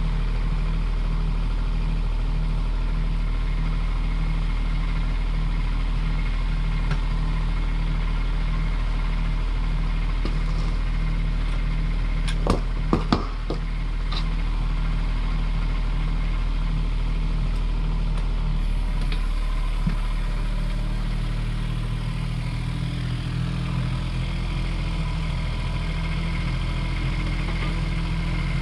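Kubota U10 mini excavator's diesel engine running steadily, with a few sharp knocks a little before halfway; from about two-thirds through, the engine note changes as the machine works.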